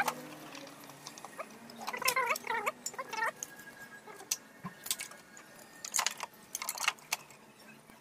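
Scattered clicks and taps of a screwdriver and plastic parts as screws are driven into the blower-motor housing of a split air-conditioner's indoor unit. A few short wavering squeaks come about two to three seconds in.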